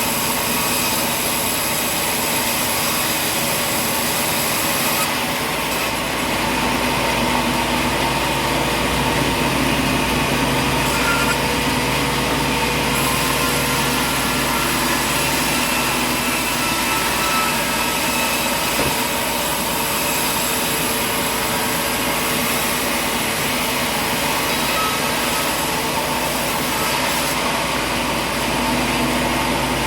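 Sawmill machinery running steadily, a loud continuous mechanical drone with several steady tones. About five seconds in the sound shifts to a deeper hum.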